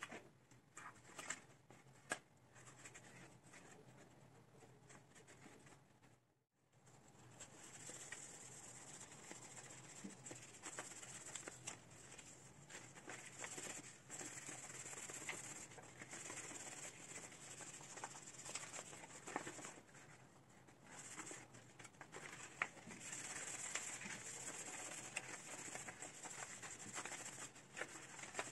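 Hands working potting soil and roots while repotting an aspidistra: soft rustling and crumbling of soil with many small clicks and knocks. The sound briefly cuts to silence about six seconds in.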